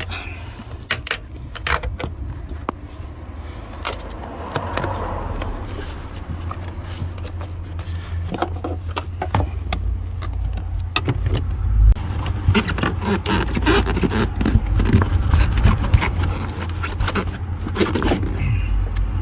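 Kick panels being prised and pulled off inside a Jaguar XJS: a run of clicks, knocks and scraping as the tight panel and its fixings give, busier in the second half, over a steady low hum.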